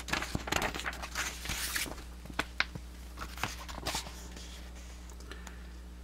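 Paper booklet pages being handled and turned: a run of rustles and light ticks over the first four seconds, then only a steady low hum.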